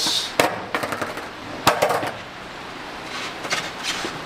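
Skateboard knocking against a concrete floor as it is set down and handled: several sharp clacks of the deck and wheels, the loudest about half a second and just under two seconds in.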